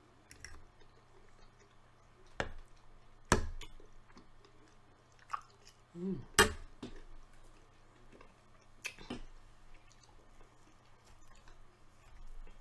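A person chewing meatballs in sauce close to the microphone, with scattered wet mouth smacks and clicks. A brief low voice sound comes about six seconds in.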